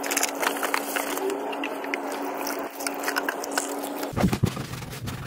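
A cloth wiping and scrubbing wet, soapy black plastic scooter body panel: rubbing and scuffing noise with small clicks. It stops abruptly about four seconds in, leaving a quieter low hum.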